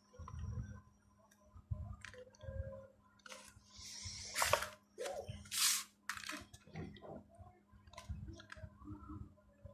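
Hands handling Hot Wheels packaging and die-cast toy cars: scattered plastic rustles, small clicks and knocks, with two louder crinkling rustles about four and a half and six seconds in, over a faint steady hum.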